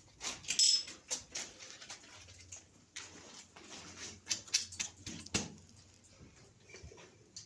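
Footsteps scuffing and crunching, with irregular small clicks and scrapes in a small enclosed room.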